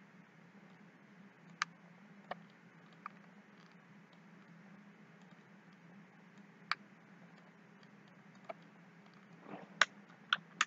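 Scattered clicks of a computer mouse, about eight at irregular intervals, a few closer together and louder near the end, over a faint steady low hum.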